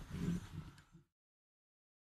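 Low, uneven outdoor rumble that fades and cuts off about a second in, followed by dead silence.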